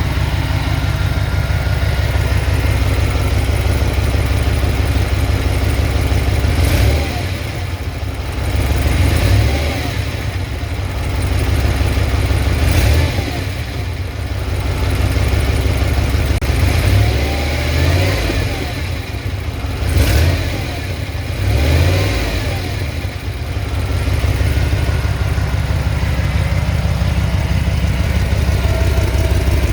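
1996 Impala SS's LT1 V8 running with a leaking exhaust gasket, idling steadily and revved in a series of short throttle blips through the middle before settling back to idle.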